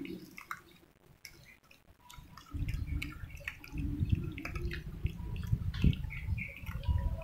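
Several cats eating soft wet cat food from bowls: many small wet lapping and chewing clicks. A low rumble joins about two and a half seconds in.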